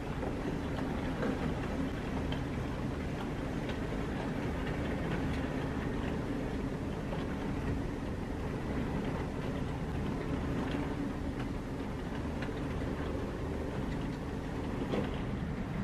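A train of goods vans rolling past on the rails: a steady running rumble with a low hum and occasional clicks from the wheels.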